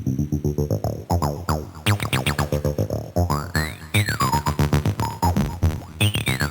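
TB-303-style acid synth bassline played through a bitcrusher distortion, a fast, even stream of short pitched notes with sweeping, gliding high tones that rise and fall across the pattern.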